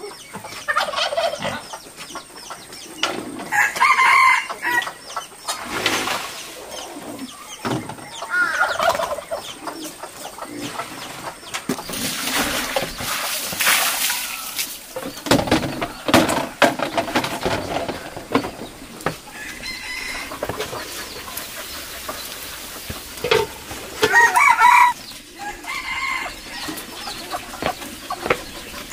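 A rooster crows several times, about four seconds in, twice more in the last few seconds, and again at the very end. Partway through, water splashes for a few seconds as it is poured from a jug.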